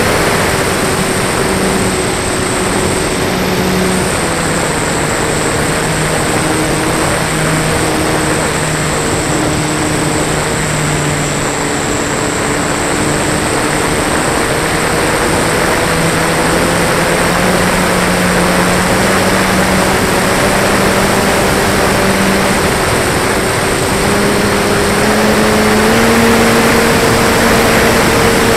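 Onboard sound of a Flyzone Beaver RC plane in flight: its electric motor and propeller drone steadily under loud wind rush on the fuselage-mounted camera. The drone's pitch shifts up and down several times, rising about three-quarters of the way through and dropping right at the end.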